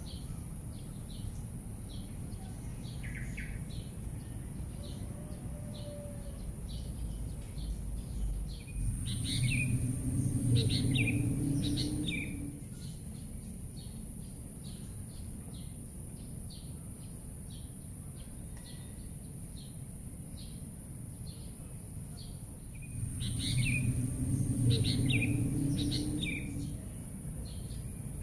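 Small birds chirping, many short repeated chirps, over a steady high-pitched hiss. Around nine seconds in and again around twenty-three seconds in, a low rumble swells up for a few seconds while the chirping grows busier.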